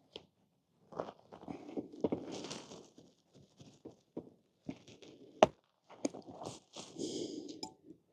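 Hands and tire levers working at a small rubber scooter tire on its rim, trying to pry the bead off: irregular scraping and rubbing with scattered clicks and knocks, and one sharp click about five and a half seconds in.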